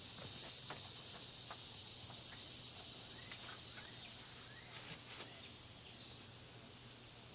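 Faint outdoor ambience: a steady high-pitched insect drone, with a few short bird chirps and scattered soft clicks.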